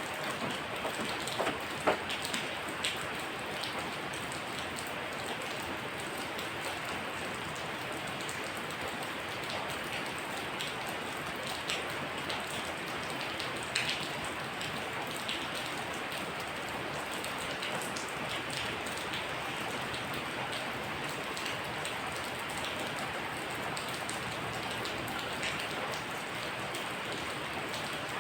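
Steady rain falling, with a few louder drops landing close by, most of them in the first couple of seconds.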